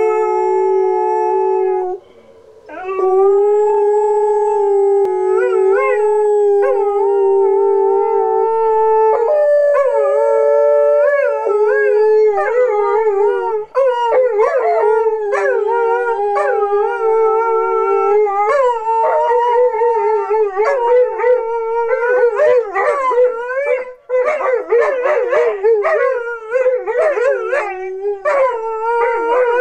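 Old English Sheepdog puppies howling ("singing"), in long drawn-out notes broken off briefly about two seconds in. From about halfway the howls turn shorter and wavering, with yips mixed in and voices overlapping.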